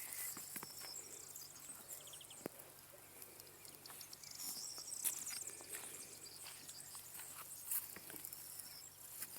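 Faint outdoor nature ambience: steady high-pitched chirping and trilling, with scattered small clicks and rustles.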